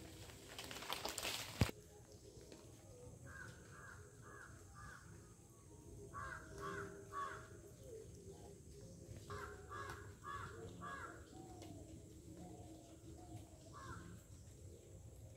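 Harsh cawing bird calls in quick runs of three or four, repeated several times, with a single call near the end. In the first second and a half a burst of crackling noise ends in a sharp knock.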